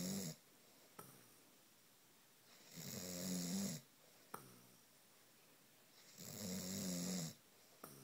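A sleeping man snoring, resounding: two full snores each about a second long, roughly three and a half seconds apart, with the end of another at the start. A short sharp click follows each snore.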